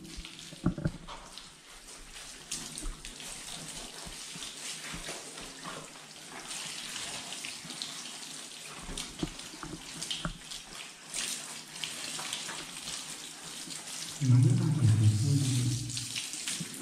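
Water running and splashing while a wet golden retriever puppy is scrubbed by rubber-gloved hands on a tiled bathroom floor, with scattered small knocks. A low voice is heard briefly near the end.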